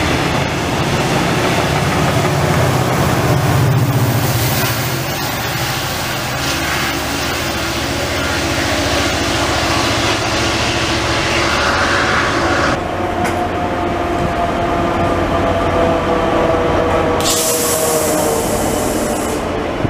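Israel Railways passenger trains with double-deck coaches rolling through a station, with steady wheel-on-rail noise. Partway through, a whine of a few tones slides slowly down in pitch for several seconds, and hiss from the passing locomotive rises suddenly near the end.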